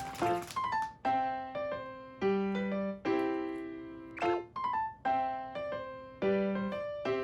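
Background music: a light piano tune, a short repeating phrase of struck notes that ring and fade.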